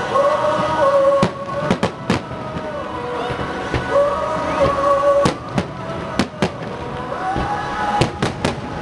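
Aerial firework shells bursting: about a dozen sharp bangs, mostly in quick clusters of two or three, over music with long held notes.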